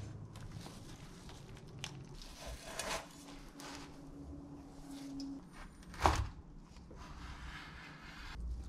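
Kitchen handling noises as a burrito is moved from a frying pan onto a wooden cutting board, with a sharp knock about six seconds in. Near the end comes the scratchy sound of a knife cutting through the toasted tortilla on the board.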